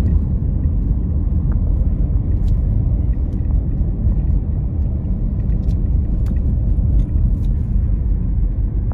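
Steady low road and engine rumble heard from inside the cabin of a moving car.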